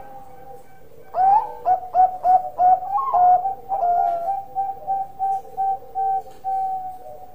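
Bangkok-strain zebra dove (perkutut) singing its cooing song: starting about a second in, a quick run of short coos, a couple of longer notes, then a string of evenly spaced coos that slows toward the end.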